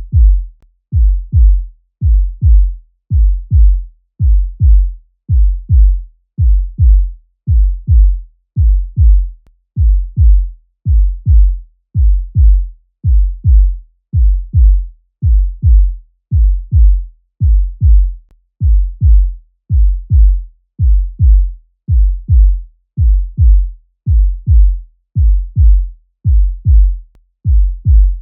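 Human heartbeat sound effect: deep double thumps, lub-dub, repeating steadily at a little over one beat a second.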